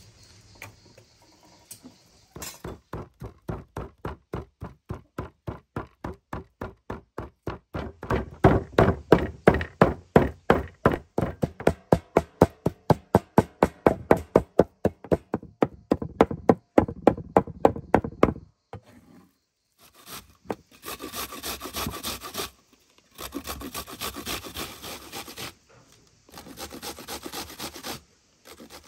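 Cleaver chopping raw meat on a wooden cutting board, mincing it with rapid steady strikes about three or four a second that grow louder partway through. Then an onion is grated on a metal box grater in several rasping strokes, each lasting a second or two.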